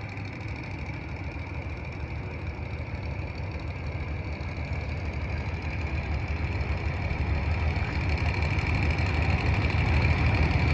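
Diesel engine of a vintage semi-tractor running as the truck drives slowly, a steady low rumble that grows louder toward the end.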